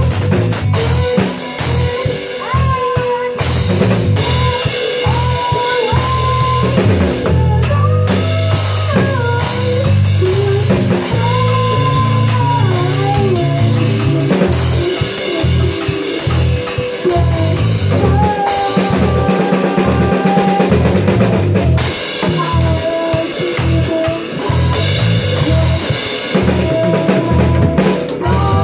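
Live band improvising a rock song: a drum kit played throughout, with electric guitar and keyboard over a steady low bass line.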